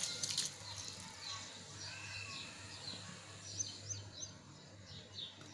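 Soft splashes as handfuls of soaked basmati rice are dropped into a pot of hot water, then faint high chirps of small birds in the background over a low steady hum.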